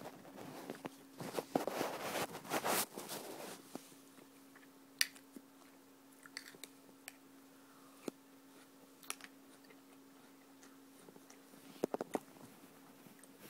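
A person crunching and chewing a mouthful of Chocolate Cheerios close to the microphone for the first few seconds. After that come a few isolated sharp clicks of a metal spoon against a ceramic mug, over a faint steady hum.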